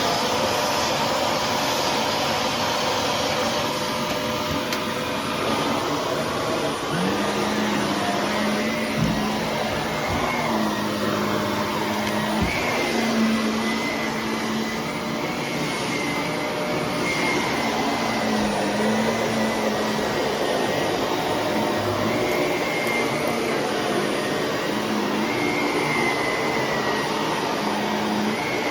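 Shark vacuum cleaner running steadily, its motor hum and high whine wavering slightly in pitch as it works over the floor. Two soft knocks partway through.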